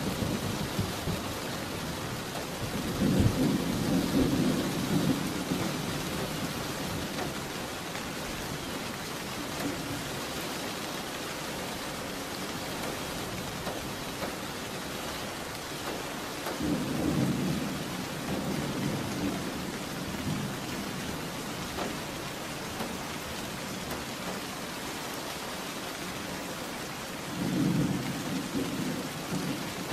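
Steady rain with rolls of thunder: three low rumbles of a few seconds each, about three seconds in, around sixteen seconds in, and near the end.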